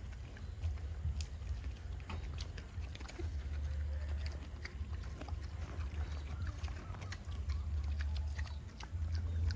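Pigs eating green vegetables: irregular crunching and chewing clicks over a steady low rumble.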